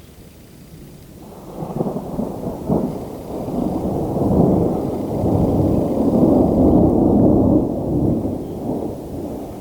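Rolling thunder: a long, low rumble that begins about a second in, swells over several seconds and slowly dies away near the end.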